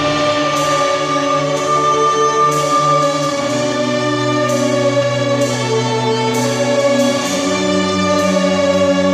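String orchestra of violins, cellos and double basses playing slow, sustained chords, the bass moving to a new note about three seconds in and again about seven seconds in.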